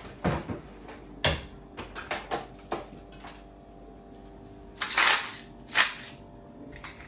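Freezer drawer handled and a plastic ice cube tray pulled out: a string of sharp clicks and knocks, then two louder clatters about five and six seconds in as the tray is handled and set down on the counter.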